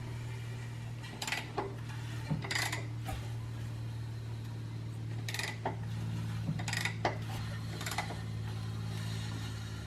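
Metallic clicks and clinks, a few seconds apart, as the crankshaft of an E36 BMW inline-six is turned over by hand with a wrench, over a steady low hum. This is the hand rotation that checks, after retiming, that nothing inside the engine touches.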